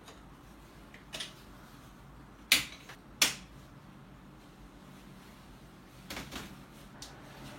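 Sharp plastic-and-metal clicks from baby stroller parts being handled and snapped into place during assembly: a faint click, then two loud snaps in quick succession, and a short scraping rustle near the end.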